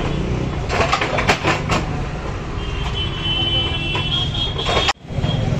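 Busy roadside street ambience: traffic and crowd noise around an open-air food stall. The sound cuts out briefly about five seconds in.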